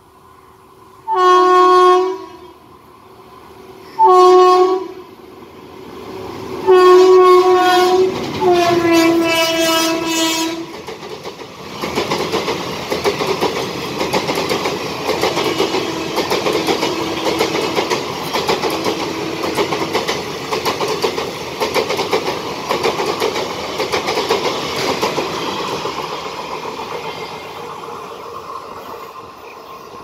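Indian express train passing at speed: the locomotive horn sounds four blasts in the first ten seconds, two short ones then two longer ones, the last dropping in pitch as the locomotive goes by. Then the coaches rush past with the rolling and clickety-clack of wheels over rail joints, fading near the end.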